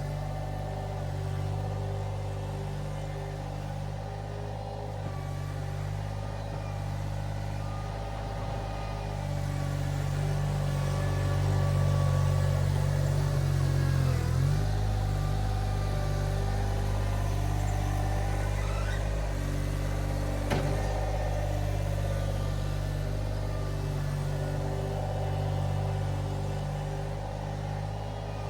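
Iron Rhino IR1200 mini skid steer engine running steadily while the machine works, getting louder about ten seconds in as it takes on load, with a single sharp knock about twenty seconds in.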